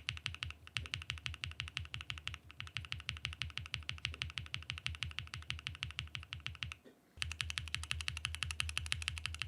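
Fast typing on a Mode SixtyFive custom mechanical keyboard with a POM plate, Infinity Key Cow switches with POM stems and PBT keycaps: a quick, even stream of deep keystrokes, about eight a second. The typing breaks off briefly about seven seconds in.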